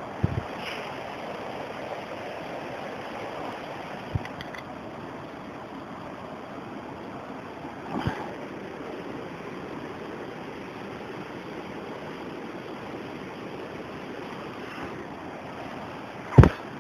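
Chicken pieces grilling on a wire mesh over glowing charcoal, with a steady, even sizzling hiss. A few dull thumps break it, the loudest near the end.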